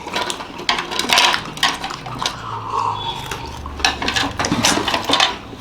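Chopsticks clicking and tapping against coffee glasses while picking up biscuits: many small, irregular clicks.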